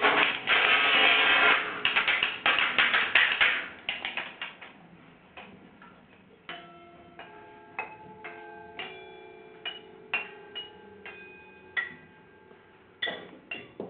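Metal clattering and rattling that thins out after about four seconds into separate light strikes on wire coat hangers and metal rods, each strike leaving a short ringing metallic tone at its own pitch.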